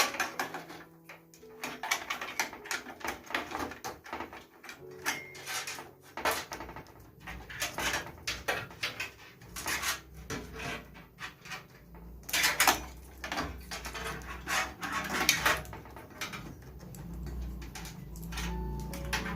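Irregular clicks, clacks and rustling as a PC power supply's cables and plastic connectors are worked loose and pulled from the drives and motherboard inside a desktop case.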